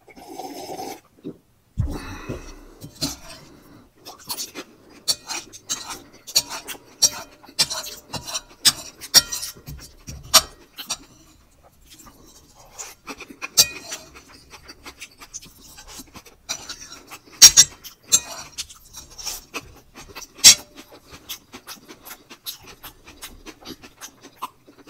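Close-miked eating sounds: a swallow of red wine from a glass, a low thump about two seconds in, then a metal spoon clinking and scraping on a ceramic plate mixed with wet chewing and lip smacks, made up of many sharp clicks, the loudest ones past the middle.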